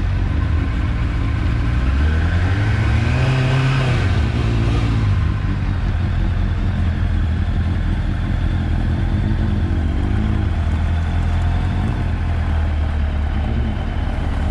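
600cc inline-four sport bike engines idling, with a rev that rises and falls about two to five seconds in; smaller blips of the throttle come later.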